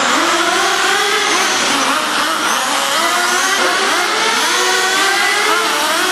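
Several radio-controlled race cars running on a dirt oval, their high-pitched motors rising and falling in pitch over and over as they speed up down the straights and slow for the turns.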